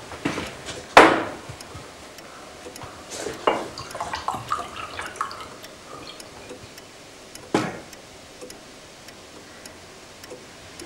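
Several clinks and knocks of small hard objects, clock parts and glass, being handled on a table, the loudest about a second in and another about seven and a half seconds in, with a run of small clicks in between.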